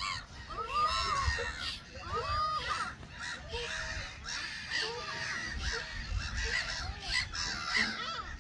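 A mixed flock of gulls calling, many short calls that rise and fall in pitch overlapping each other, several every second.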